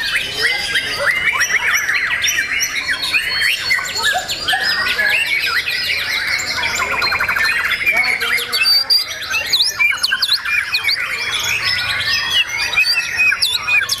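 White-rumped shama (murai batu) singing in a contest cage: a fast, varied, unbroken stream of whistles, trills and chirps, overlapping with the songs of other shamas hung nearby.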